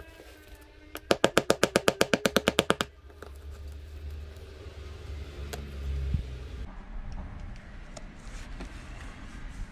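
Music with a rapid drum roll, about nine pitched hits a second for roughly two seconds, followed by a low rumble and a few light clicks.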